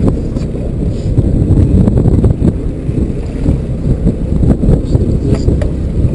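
Strong wind rumbling on the microphone on an open fishing boat at sea, with a few light clicks.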